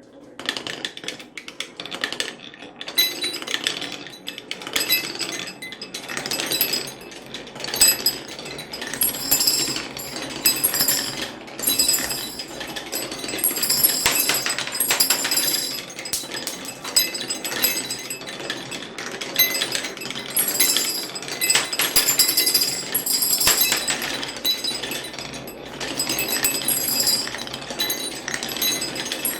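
Many marbles rolling and clattering down a wooden HABA block marble run, a dense stream of clicks, with glassy clinks as they drop into a glass bottle.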